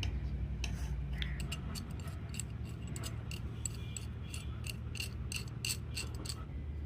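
Light metallic clicks and clinks of a steel wrench being handled, several a second and irregular, over a steady low hum.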